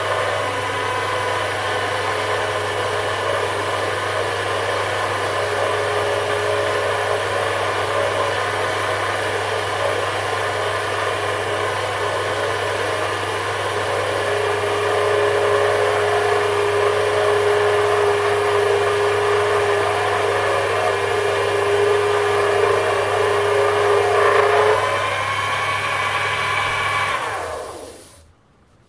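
Sherline benchtop metal lathe running steadily while a brazed carbide tool takes a cut along a hard steel bar, a motor hum under several steady whining tones. A higher steady tone sounds through the middle stretch; then the lathe is switched off near the end and spins down to quiet.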